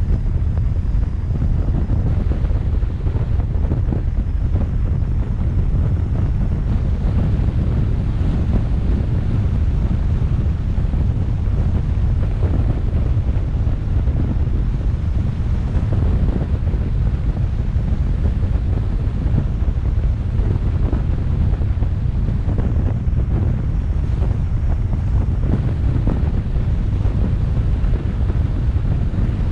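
Steady low rumble of a car on the move: road and wind noise buffeting the microphone.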